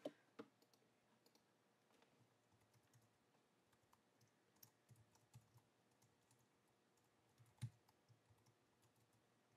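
Faint computer keyboard typing: scattered soft keystrokes, with one louder tap about three-quarters of the way through.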